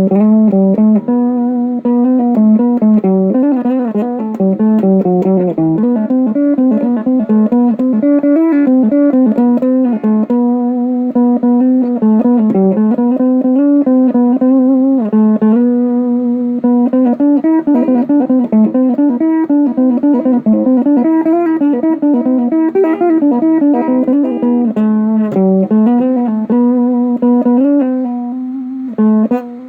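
Guitar music: a melody of held and changing notes played on guitar.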